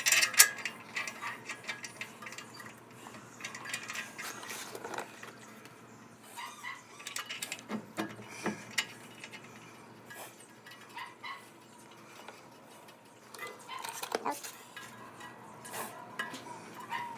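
Hand tools and steel bolts clinking and knocking against the front suspension parts, in irregular metallic clicks and taps, while the lower ball joint bolts are worked back into the lower control arm.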